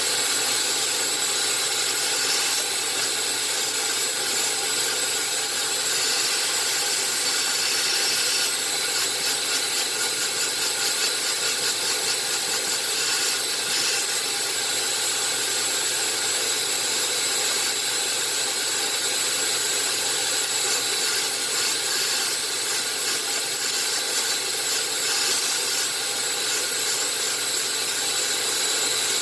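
Vacuum cleaner running steadily, sucking dust out of a laptop's insides, its high whine wavering a little in level.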